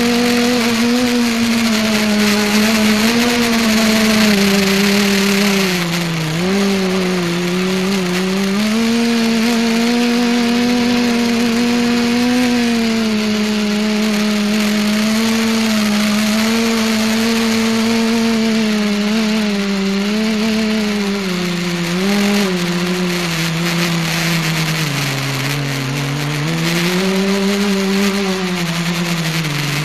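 Motors and propellers of an R/C multicopter, heard through its onboard camera: a steady buzzing drone whose pitch dips and climbs as the throttle changes, dropping lowest about seven seconds in and again in the last few seconds.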